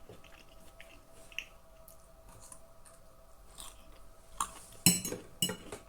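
Close-up chewing and mouth sounds of someone eating, soft and wet, with a few sharper clicks near the end. A faint steady hum runs underneath.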